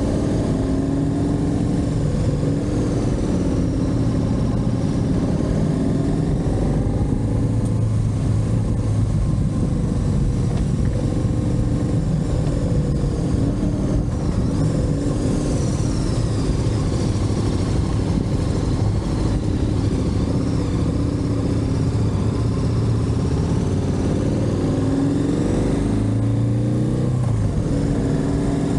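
Motorcycle engine running under way, its pitch rising and falling with the throttle and gear changes, over a constant rush of wind and road noise.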